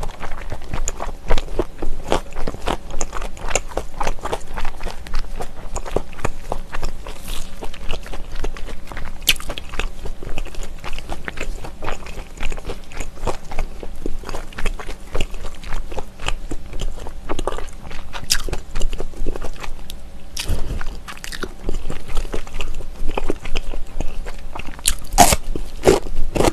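Close-miked chewing of smoked pork belly: a continuous run of quick wet smacks and clicks from the mouth, with a cluster of louder clicks near the end.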